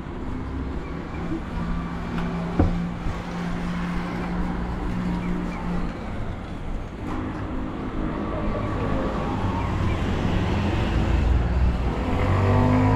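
Street traffic: cars and motor scooters passing on a city road, with steady engine hum and tyre noise, and one sharp click about two and a half seconds in.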